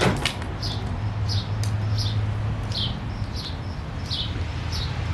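Microwave oven running with a steady low hum while heating hot glue, and a sharp click right at the start. Short high chirps that fall in pitch repeat about two or three times a second over the hum.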